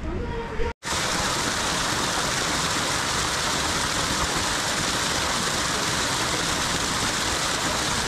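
Steady rushing of flowing river water, an even unbroken noise that starts abruptly after a short cut about a second in.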